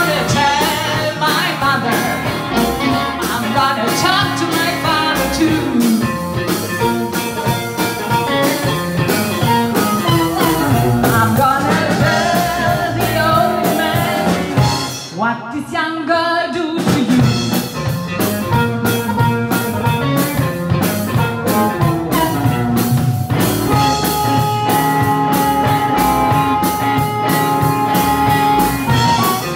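Live blues-rock band playing: electric guitar, drum kit and harmonica, with held, wailing high notes over the beat. The sound thins out briefly about halfway through.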